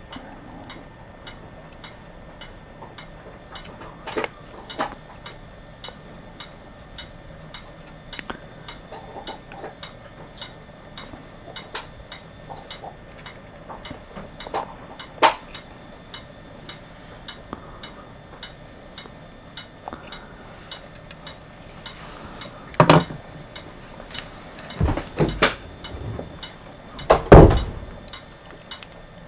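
Light clicks and taps of a soldering iron, wires and a small circuit board being handled during soldering, over a faint, even ticking about twice a second. A few louder knocks and bumps come near the end.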